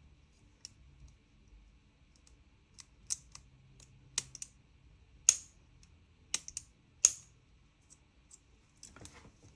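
Parts of a gas-blowback airsoft gun clicking and knocking against each other as they are worked into place during reassembly: a dozen or so irregular sharp clicks, the two loudest about five and seven seconds in.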